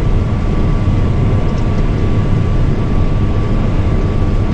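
Case combine harvester running steadily while harvesting, heard from inside its cab as a loud, even low rumble with a faint steady high whine.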